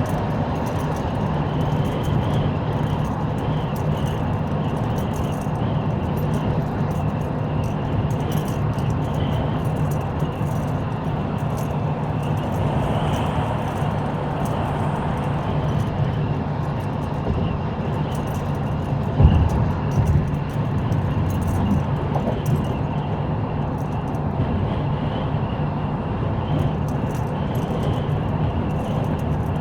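Car driving along: steady engine and road noise, with one short thump about two-thirds of the way through.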